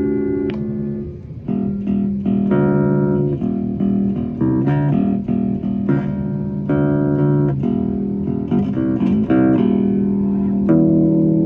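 Rickenbacker-style kit electric bass guitar being played: a line of plucked notes, some short and quick, some held, with a short pause about a second in and a held chord near the end.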